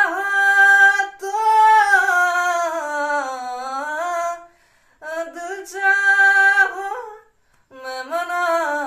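A man singing a cappella in a high voice, holding long wordless vowel notes that slide slowly in pitch, in three phrases with short breaths between them.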